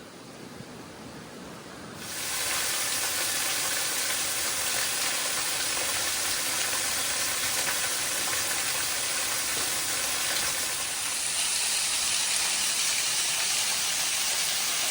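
Steady hiss of rushing water, cutting in suddenly about two seconds in and growing a little louder near the end.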